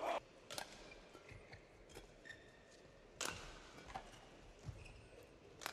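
Badminton rackets striking a shuttlecock with sharp cracks: one at the start, one just after, then a rally picking up with cracks a little over three seconds in, about four seconds in and near the end. Faint shoe squeaks on the court fall between them.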